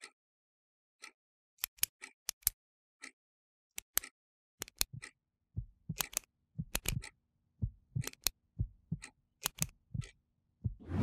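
Sharp ticks, about once a second at first, then quickening into irregular clusters. Low thumps join about halfway, and a rising swell of sound comes near the end.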